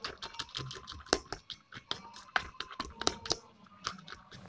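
A spoon stirring crushed Lay's potato chips into beaten egg and chopped onion in a stainless steel bowl: quick irregular scraping and clicking of the spoon against the metal, with the chips crunching.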